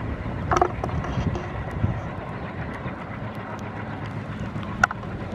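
Passenger train running past at a distance, a steady low rumble of the coaches on the track, with two brief sharper sounds, about half a second in and near the end.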